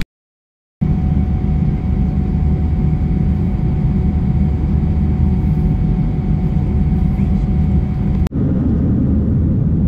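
Steady low rumble of a jet airliner's engines and airflow heard from inside the passenger cabin, with a faint steady whine over it. It starts abruptly just under a second in and drops out for an instant near the end.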